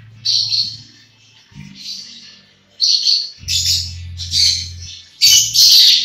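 Budgerigars chirping and squawking in a run of short calls, loudest near the end.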